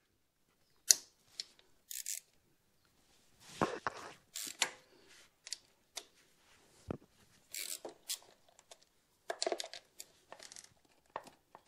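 8 mm socket wrench undoing the bolts of a motorcycle's front sprocket cover: scattered sharp metallic clicks, taps and short scrapes as the tool is worked and the bolts come out.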